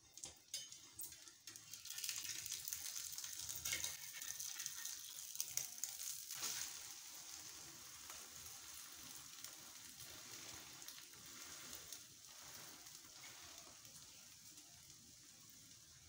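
Egg-topped flatbread sizzling on a stone-coated griddle pan, with a few sharp taps and scrapes of a slotted metal spatula as it is turned. The sizzle grows louder about two seconds in and settles to a softer, steady frying in the second half.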